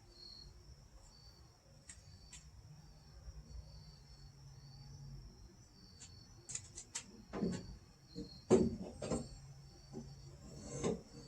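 Crickets chirping steadily in the background. In the second half come a few sharp knocks and clunks, the loudest about eight and a half seconds in.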